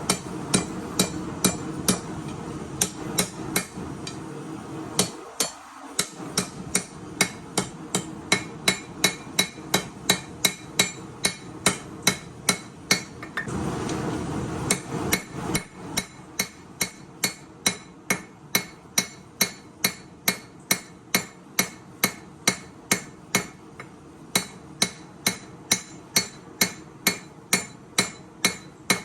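Hammer blows ringing on steel against an anvil while forging a chef-knife blade, irregular at first, then a steady rhythm of about two strikes a second, over a steady rushing noise.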